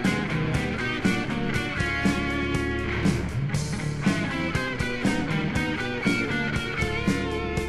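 Psychedelic rock played by a trio: guitar over bass and drums, with a steady drum beat.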